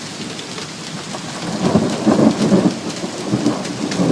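Heavy rain mixed with sleet pouring down steadily. About a second and a half in, a roll of thunder rumbles in and swells, loudest near the middle, then keeps rolling.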